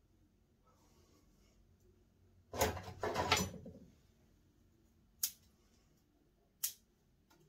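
A burst of rustling and handling noise, then two short sharp snips of bonsai scissors cutting white spruce twigs.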